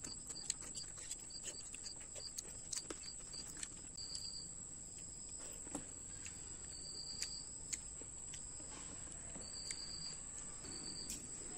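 Insects chirping in a rapid, even pulse, about four chirps a second, breaking into longer trills after about four seconds, over a constant high-pitched drone. Short, sharp clicks and smacks come through from snails being sucked from their shells and picked over by hand.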